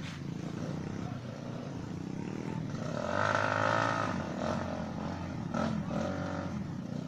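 Trail motorbike engine revving hard as it climbs a steep muddy bank, rising to its loudest surge about three seconds in and revving up again briefly near the end.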